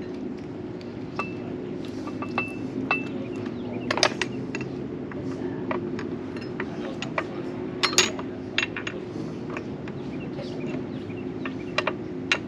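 Metal parts of a jack clinking and knocking as it is handled and set up, with sharper clanks about 4 and 8 seconds in, over a steady low hum.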